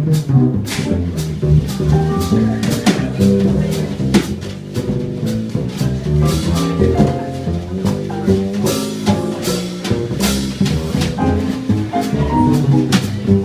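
Small jazz combo playing live, with a moving line of low notes under the band and a drum kit's cymbals sounding throughout.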